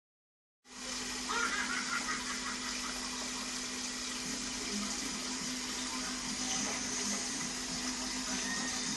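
Aquarium filter running: a steady rush of moving water with a constant low hum.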